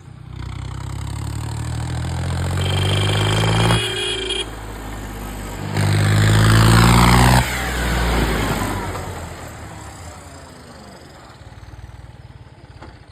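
Tractor engine revving through its exhaust in two loud bursts, each cut off suddenly. After the second burst the pitch falls and the sound fades away.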